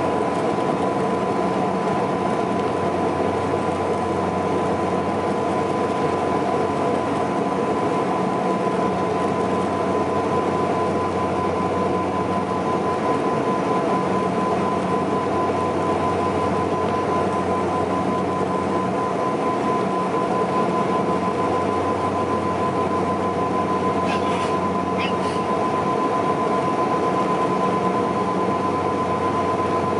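Steady cabin drone of a Saab 340B's twin General Electric CT7 turboprop engines and propellers in flight, heard from inside the cabin: a low hum with a steady high whine over the rush of air. Two faint clicks sound near the end.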